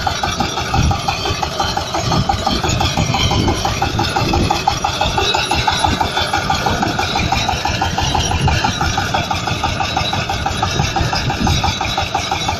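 Potato harvester machinery running steadily, an engine droning under a fast, even clatter.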